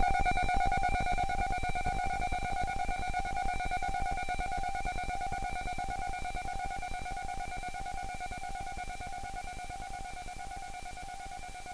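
Electronic track fading out: a held synth tone sits over a fast, dense pulsing low beat, and the whole mix gets steadily quieter.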